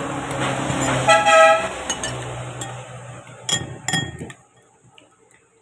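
A motor vehicle's engine running, with a brief horn toot about a second in, then a few clinks of a spoon against a bowl before the sound drops away to near silence.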